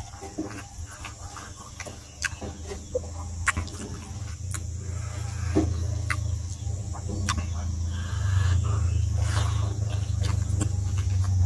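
Close-up chewing and lip-smacking of a man eating rice and smoked pork by hand, heard as scattered sharp smacks and clicks. A low rumble under it grows louder about halfway through.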